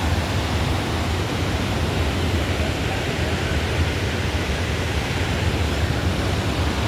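Waterfall rushing steadily: a loud, even roar of falling water with a strong low rumble.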